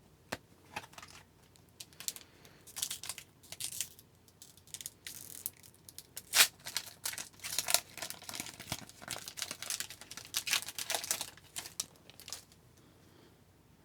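Hockey card pack wrapper being crinkled and torn open and cards handled, an irregular run of crackles and snaps, the loudest about halfway through, fading out near the end.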